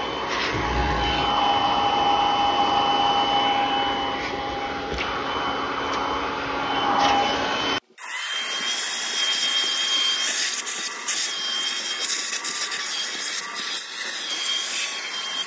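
Vacuum cleaner running with a steady whine as its hose works over a car interior, from the floor carpet to the leather rear seats. About eight seconds in the sound drops out for a moment and comes back thinner, with a higher whine.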